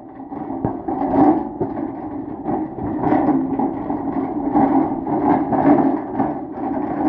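A small engine running, its loudness swelling and dipping every second or so as it is ridden.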